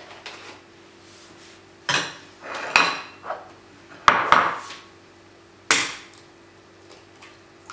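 Ceramic bowl and plate clinking and knocking on a kitchen countertop, about half a dozen separate knocks, then an egg rapped against a bowl's rim to crack it.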